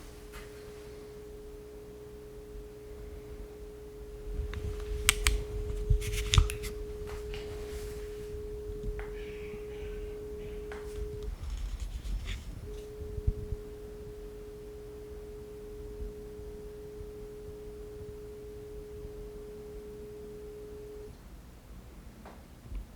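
Dangbei Mars Pro 2 projector giving off a constant whine: one steady tone with a fainter lower tone beneath it, which breaks off about halfway through, comes back a second or so later and stops near the end. The owner traces it to the digital micromirror device in the optical engine, a hardware fault. A few clicks and knocks sound around a quarter of the way in.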